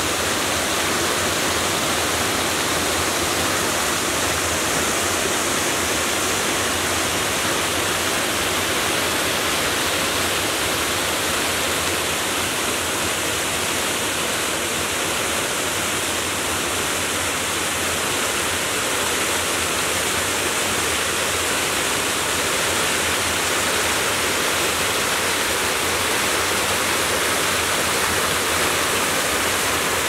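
Small waterfall on a mountain stream, the water spilling over rock ledges in several low cascades: a steady, unbroken rush of falling water.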